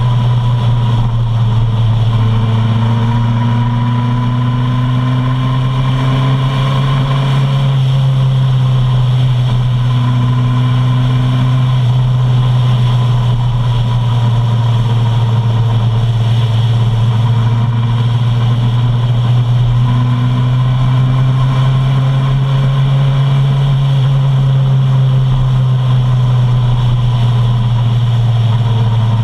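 Suzuki Bandit 650's inline-four engine running steadily while riding, its pitch rising and falling gently.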